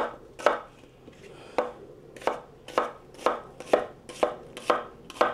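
Chef's knife slicing an onion on a wooden cutting board: about ten sharp knife strokes through the onion onto the board, with a short pause about half a second in and then roughly two strokes a second.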